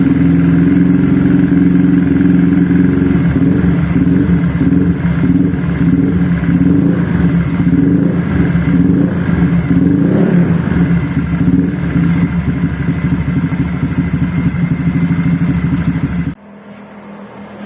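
Honda Vario 125 scooter's single-cylinder four-stroke engine idling through an aftermarket RMS Muffler Sport slip-on silencer: a steady, loud exhaust note that rises and falls a little in the middle. It stops abruptly about sixteen seconds in.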